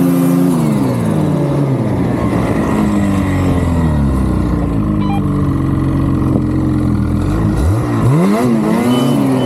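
Turbocharged vehicle engine running under way. Its revs drop about a second in, hold steady, then climb sharply near the end before easing off, with a faint steady high whine over the engine note.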